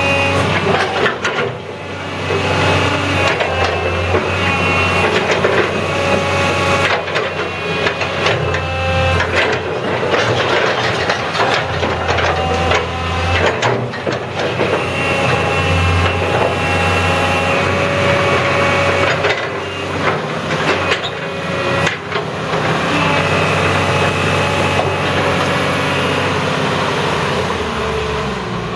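Mitsubishi MS180LC-3 hydraulic excavator running and working: a steady diesel engine hum under a whine that comes and goes every few seconds as the hydraulics are worked, with a few sharp metallic knocks.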